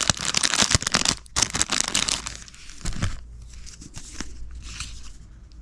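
Paper crinkling and tearing as mail is unwrapped, dense and crackly for the first two seconds or so, then thinning to a few fainter rustles.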